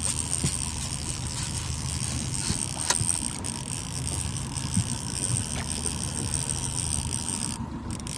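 Boat motor running steadily at trolling speed, a low even hum, with a few faint clicks.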